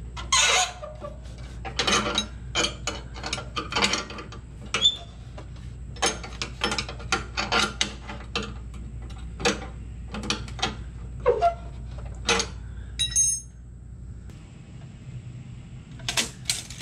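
Irregular metallic clicks and clinks as the deck-leveling adjustment rod and nut on a Simplicity Courier zero-turn mower's cutting deck are turned by hand to correct the side-to-side level. A brief ringing metal chink comes late on.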